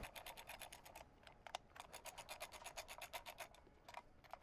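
Socket ratchet clicking rapidly and evenly, faint, in two runs with a short break about a second in, as flywheel bolts are run down to hand tight.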